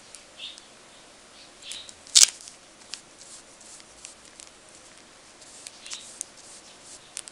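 A paintbrush worked in a watercolour pan and then stroked across paper: soft rustles and small scattered ticks, with one sharp click about two seconds in.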